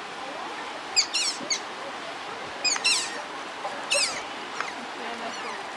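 Otters giving high-pitched squeaking chirps: short calls that slide downward in pitch, coming in quick clusters of two or three, about one, three and four seconds in.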